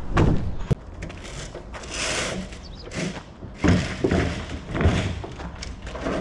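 A series of heavy thumps and knocks with a scraping rush about two seconds in, from someone climbing down out of a tautliner semi-trailer.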